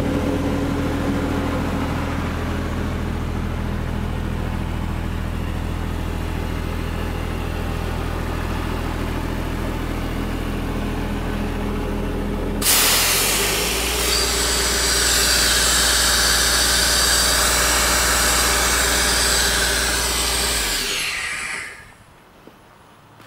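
Sullair S58 portable diesel air compressor running steadily. About halfway through, the engine speed steps up and a loud rushing of air joins it, as the compressor goes on load. Near the end the engine shuts down and winds to a stop.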